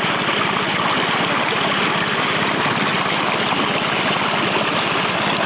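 Water running steadily through a shallow muddy channel, over the even, fast low chug of a small engine-driven pump draining the pond.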